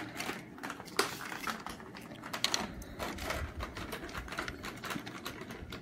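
Hard plastic action-figure parts and packaging being handled: irregular light clicks and taps, with a sharper click about a second in.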